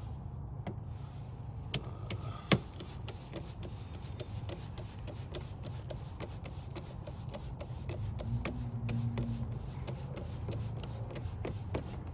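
Turn-signal flasher of a Lexus LX470 ticking steadily at about three clicks a second, the normal blink rate with error-free LED bulbs fitted, so it is not hyper-flashing. A steady low hum runs underneath, and there is one louder click about two and a half seconds in.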